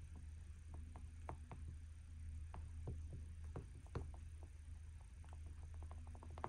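Oil pastel stick rubbed and dabbed on a stretched canvas, giving small irregular scratchy ticks over a steady low hum.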